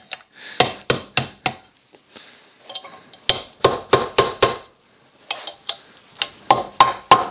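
Hammer blows on a steel tool held against a screw head, in quick groups of three to five, with some blows ringing briefly. They are striking loose the seized bedknife screws of a reel mower's cutting unit.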